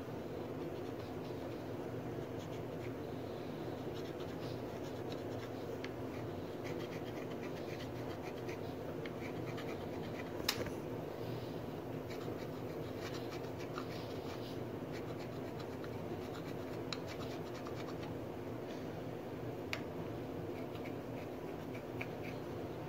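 Hand bearing scraper shaving a babbitt bearing surface in a series of light scratching strokes, with a sharper click about halfway through, over a steady low hum. The scraping takes off high spots to improve crankshaft-to-bearing contact.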